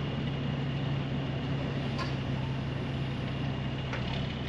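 Diesel engine of a Peterbilt roll-off truck running steadily under a winch pull, a constant low drone. Two faint clicks come through, about two and four seconds in.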